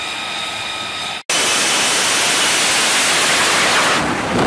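F-35B's single F135 jet engine running with a steady high whine, then, after a sudden cut about a second in, a louder full-power roar as the jet makes its short takeoff run. Near the end the roar turns gusty, with wind buffeting.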